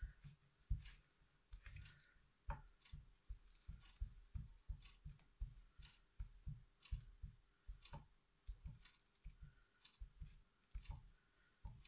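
Faint soft knocks and light clicks, about two or three a second at an uneven pace, over a quiet room.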